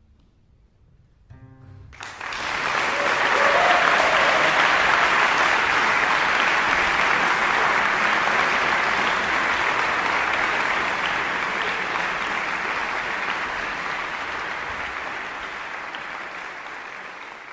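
Audience applause, a dense clapping that starts suddenly about two seconds in and slowly dies away. It comes just after a brief plucked-string note.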